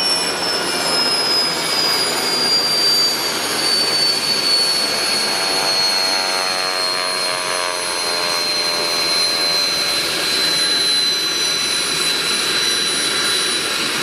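Alouette III helicopter's turboshaft engine spooling down at shutdown: a high turbine whine that slowly falls in pitch over the steady rushing of the still-turning rotors.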